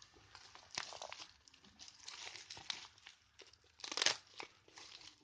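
Crinkly packaging being crumpled and torn open by hand, in irregular crackles with the loudest burst about four seconds in.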